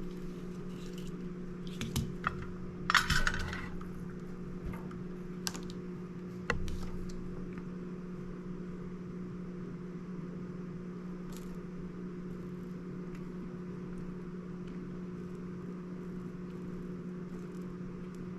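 A few small metallic clicks and light clatter as soldering tools and wire are handled, the loudest cluster about three seconds in, over a steady low hum that continues alone after about seven seconds.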